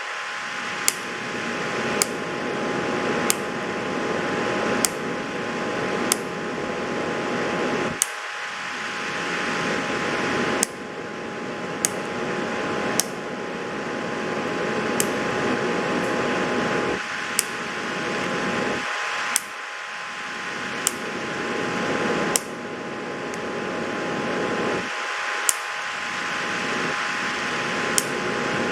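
Steady fan-like whirring, broken by sharp clicks every one to two and a half seconds.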